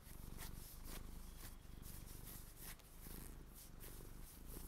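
Fingernails scratching and rubbing along thin knee-high fabric socks: a string of short, soft scratching strokes, a few a second, over a low steady rumble.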